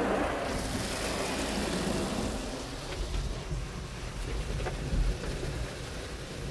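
Water spraying and splattering on a car's windows and body in a Peco car wash tunnel, heard from inside the cabin as a steady rain-like hiss. A dull thump comes about five seconds in.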